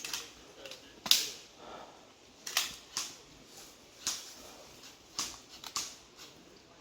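Airsoft guns firing single shots: about eight sharp pops at irregular intervals, the loudest about a second in. After the 'mags out' call, these are the kind of shots fired to clear the guns.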